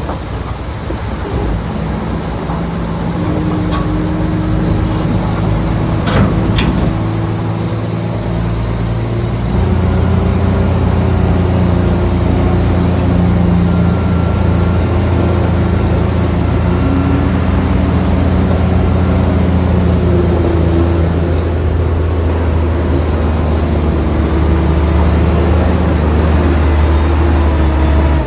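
Heavy diesel engine of earthmoving machinery running steadily under load with a deep drone, growing louder about ten seconds in. A couple of short metallic clanks come early on.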